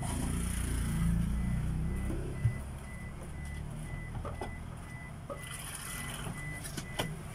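A vehicle's engine rumbles, loudest in the first three seconds. About two seconds in, a reversing beeper starts a steady series of short high beeps, with a single knock just after.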